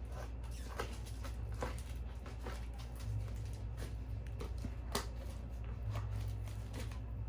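Packaging being handled and worked open, with scattered crinkles and clicks and a sharper snap about five seconds in.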